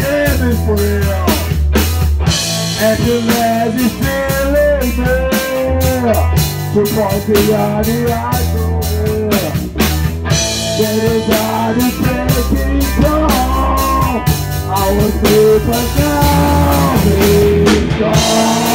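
A live rock band playing loudly: drums on a Mapex kit, electric guitars and bass, with a singer's vocal line over them.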